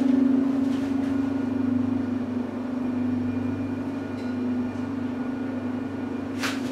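Old KONE two-speed traction freight elevator car travelling in the shaft: a steady hum from the drive with a low drone under it. A short rushing noise comes near the end.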